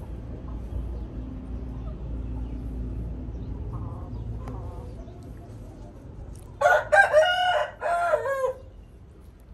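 A rooster crowing once about two-thirds of the way in: a loud call in several parts, the last part falling in pitch. Before it there is a low rumble.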